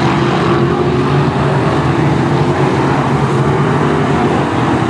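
Several BriSCA F1 stock cars' V8 engines running together in a pack, a loud steady blare with no single car standing out.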